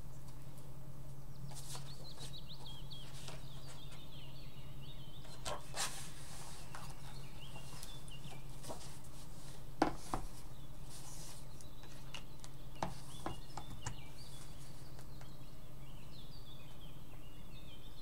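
Songbirds singing in woodland: repeated high chirps and quick descending warbled phrases, over a steady low hum. A few sharp clicks break in, the loudest about ten seconds in.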